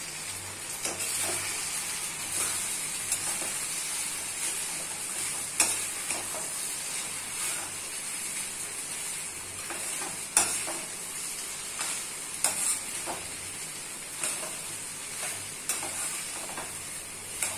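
Rice and vegetables frying with a steady sizzle while being stirred and tossed in a metal kadhai with a perforated steel spoon, the spoon scraping and clicking against the pan now and then.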